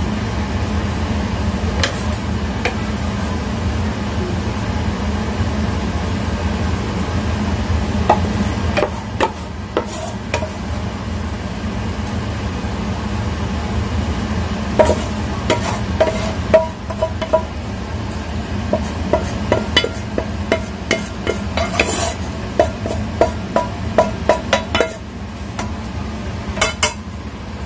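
A wooden spatula scrapes and taps against a wok while thick, cooked chicken-and-sauce mixture is scooped out. Clicks are scattered at first and grow denser in the second half, some with short metallic rings, over a steady low hum.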